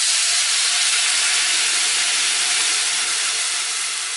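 Hot oil in a stainless steel saucepan hissing and sizzling loudly as water is poured in and flashes to steam. The hiss starts abruptly and fades slowly toward the end.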